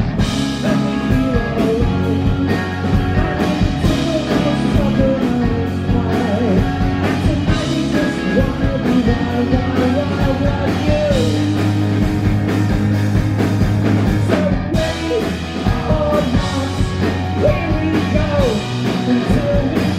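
Live rock band playing a song: a semi-hollow-body electric guitar, bass guitar, a drum kit with a steady beat, and a male voice singing lead, recorded from in front of the stage.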